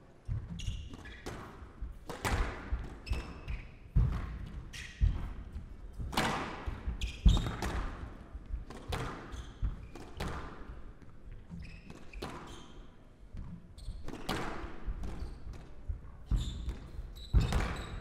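Squash rally: the ball cracking off rackets and thudding into the front and side walls of a glass court at an uneven, roughly once-a-second pace, each hit echoing in the hall. Short high squeaks of shoes on the court floor come between the hits.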